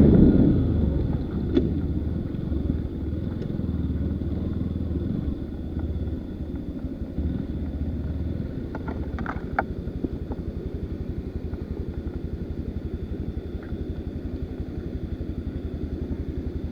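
Enduro motorcycle engine running at low revs, dropping from a louder burst at the start to a steady, evenly pulsing idle, with a few light knocks around the middle.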